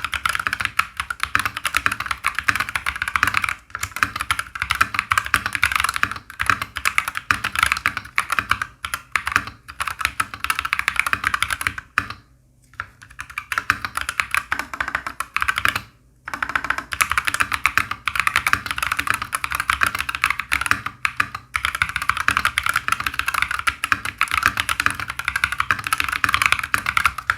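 Typing sound test on a mechanical keyboard with MMD Panda tactile switches and thick PBT double-shot MDA-profile keycaps: a fast, dense, loud clatter of keystrokes. It breaks off briefly about 12 and 16 seconds in.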